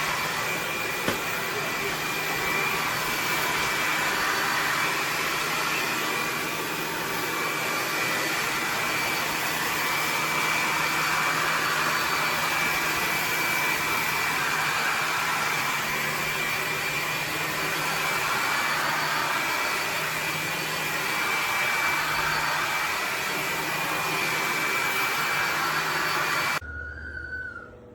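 Bissell PowerClean 200W cordless stick vacuum running steadily, a rush of air with a steady high whine. It cuts off suddenly near the end.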